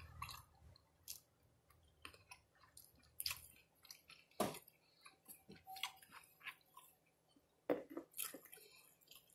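A person chewing a bite of a chicken-and-cheese taco cup with salsa, close to the microphone: soft, irregular mouth clicks and small crunches, the strongest about halfway through and again near the end.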